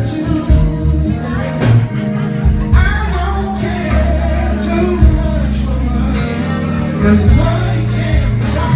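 Live band music played loud through a PA system: a heavy bass line and drum beat with singing over it.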